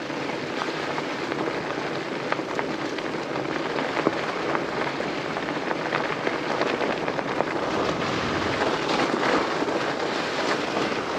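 Fat tires of an electric bike rolling over a dirt trail with small rocks, a steady crunching hiss full of small ticks and crackles from stones under the tread, growing slowly louder.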